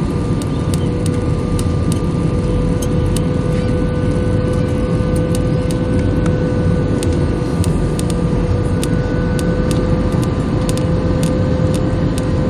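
Jet airliner cabin noise during the descent to landing: a steady, loud rumble of the engines and rushing air, with a steady whine running through it.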